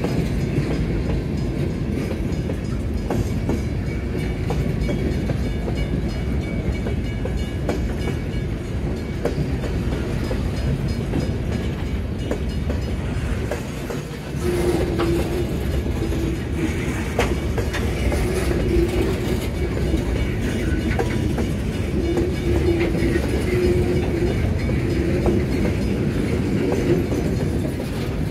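Freight cars rolling past on the rails, a steady low rumble with wheels clicking over the rail joints. About halfway through, a wavering tone comes and goes over the rumble.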